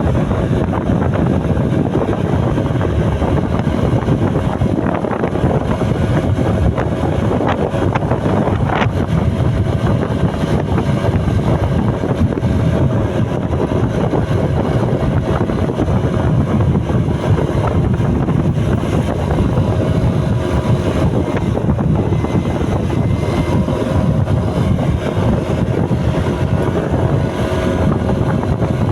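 Steady engine and road noise of riding in traffic, with wind buffeting the microphone.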